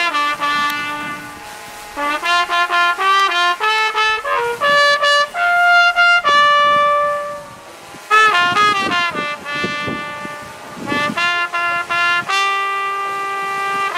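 Marching band brass playing a show tune, a trumpet close at hand carrying the melody: runs of quick repeated notes alternating with long held notes.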